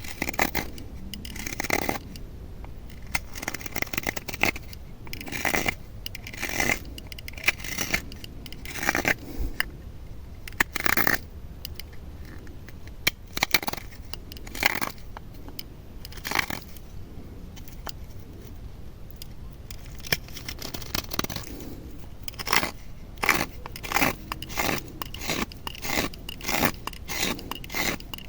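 Knife carving wood: a series of short scraping strokes, spaced irregularly at first and then quicker and closer together in the last several seconds.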